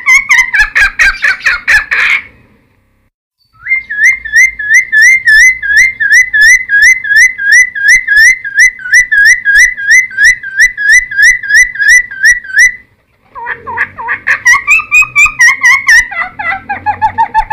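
Cucak timor singing loudly in whistled phrases. A varied phrase breaks off, and after a short pause comes a long run of quick, evenly repeated slurred whistles, about four a second. After another short pause it goes back to varied notes.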